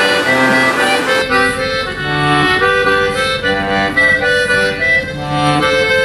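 Instrumental music with an accordion playing the melody in short steady notes; the backing thins out about a second in.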